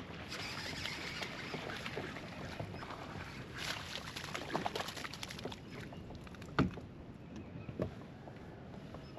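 Small noises around a fishing kayak on the water: a steady noisy wash with scattered light clicks and knocks, two sharper knocks about six and a half and eight seconds in.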